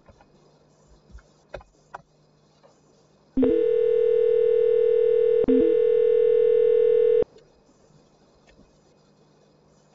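A steady, buzzy telephone tone on the call line sounds for about four seconds, cut by a brief break halfway, with a short lower blip at the start of each part. A few faint clicks come before it.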